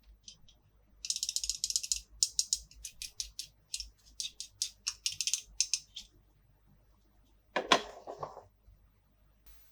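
Small plastic toy parts and packaging being handled: a fast run of crisp, ratchet-like clicks lasting about five seconds, then one louder knock with a rustle near the end.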